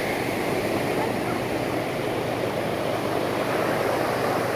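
Surf breaking and washing up the beach, with the steady low drone of a helicopter flying overhead.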